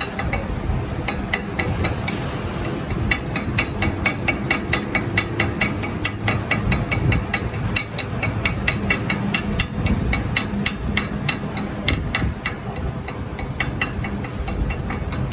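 Rapid, light hammer strikes on metal, several a second, over a steady low machine rumble.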